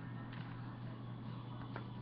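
Faint handling noise of a booklet trading card being moved on a desk, with a couple of light ticks, over a steady low hum.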